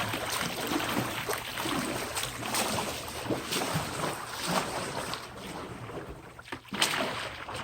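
Pool water splashing and churning as a homemade paddle boat is paddled hard, stroke after stroke, with a sharper, louder splash about seven seconds in.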